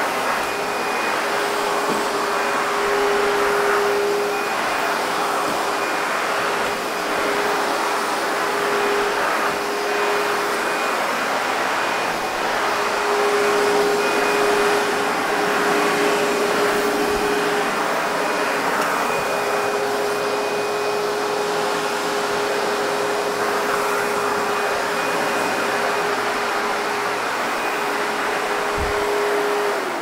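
ProTeam MegaVac backpack vacuum running steadily, sucking air through its wand and floor tool across a hardwood floor: an even rush of air with a steady motor whine.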